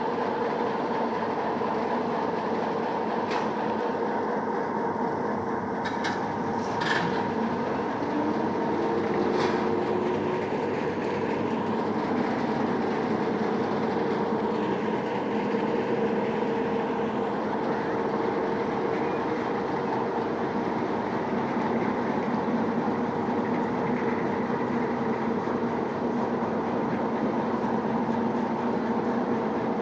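A turntable turning with a small diesel shunting locomotive, a DB Köf II, running on it: a steady hum, with a few sharp clicks in the first ten seconds.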